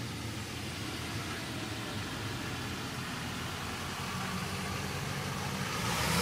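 Car engine and road noise, a steady hum that grows gradually louder toward the end as a vehicle comes closer. No horn is heard.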